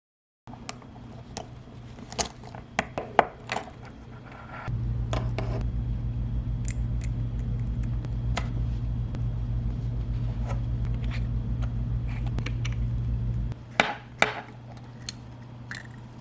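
Small sharp metallic clicks and taps of watch-repair tools handling an Invicta Pro Diver watch, over a low steady hum. The hum grows much louder about five seconds in, holds for about nine seconds, then drops back, followed by a few louder clicks.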